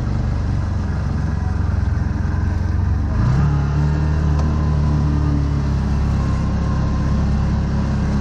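CF Moto ZForce 1000 side-by-side's V-twin engine running under way, heard from the cab. It revs up quickly about three seconds in and then holds the higher engine speed.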